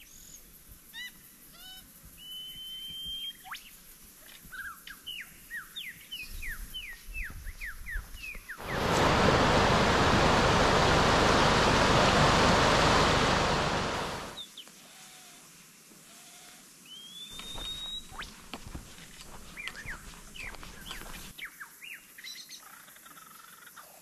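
Forest birds chirping and whistling: many short quick calls and a few longer high whistles. About nine seconds in, the loud rush of a rocky stream's rapids takes over for about five seconds, then gives way to birdsong again.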